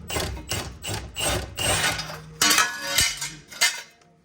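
Hand ratchet worked in quick rasping strokes, about two a second, with a sharper metallic knock about three seconds in, as a subframe bolt is backed off to lower the cradle.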